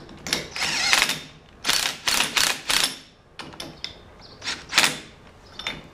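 Cordless driver running a bolt into a race car's brake spindle in several short bursts of the trigger. The bolt goes in stiffly, and the owner finds the threads dirty.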